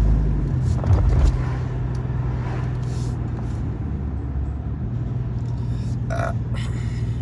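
Car driving on the road: a steady low drone of engine and tyre noise, with a brief louder low rumble about a second in.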